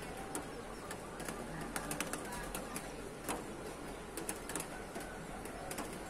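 Birds calling after rain: doves cooing low, with many short sharp chirps scattered irregularly through, over a steady low hum.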